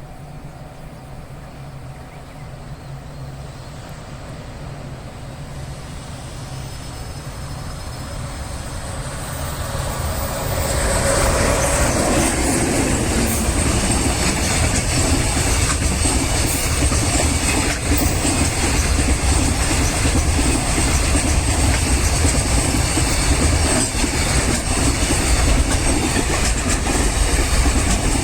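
A long freight train passing over the line at speed, its wheels clattering over the rail joints. The noise builds for about ten seconds as it approaches, then stays loud and steady as the wagons roll past.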